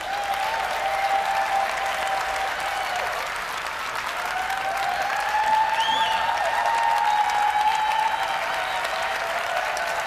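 Arena audience applauding and cheering, breaking out suddenly at the start and running on steadily. A short high whistle rises out of the crowd about six seconds in.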